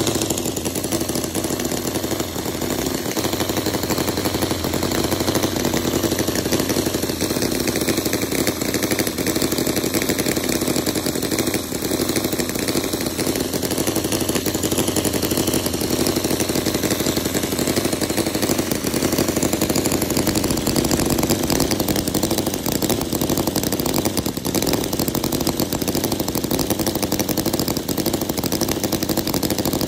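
Cison FL4-175 miniature 17.5cc four-cylinder flathead engine running at a steady low idle, with its carburettor and ignition tuned in.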